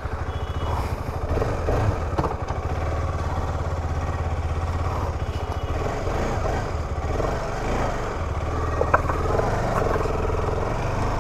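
KTM 250 Adventure's single-cylinder engine running steadily at low revs as the bike pulls away slowly with two people aboard.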